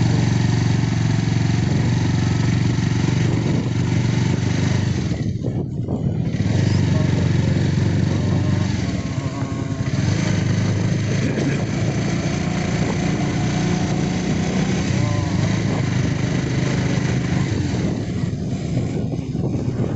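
Motorcycle engine running while riding, its note rising and falling with the throttle over steady road noise. The engine eases off briefly about five seconds in and again near the end.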